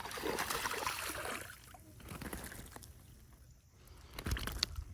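Hooked bass splashing and thrashing at the water's surface, loudest in the first second and a half, then quieter sloshing with a few sharp knocks near the end.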